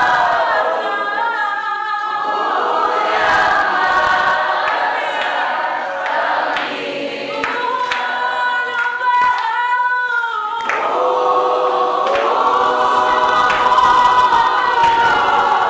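A small mixed group of young voices singing a worship song a cappella in harmony. Around halfway through the voices thin to one or two held notes, then the full group comes back in.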